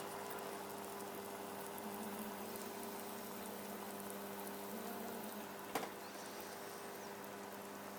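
Water boiling around a heating-element wire, a steady bubbling hiss under a low steady hum. A single sharp click comes a little before six seconds in.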